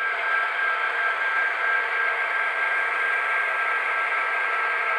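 Broadway Limited Paragon4 HO-scale EMD GP20 model locomotives running, their onboard sound systems playing a steady diesel engine sound with a high whine and no low rumble.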